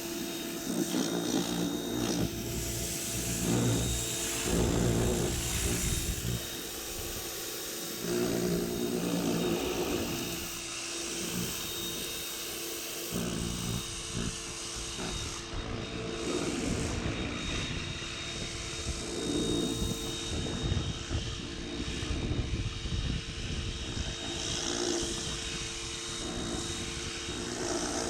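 Pressure washer running, its motor humming steadily under a hissing water spray that swells and fades in loudness.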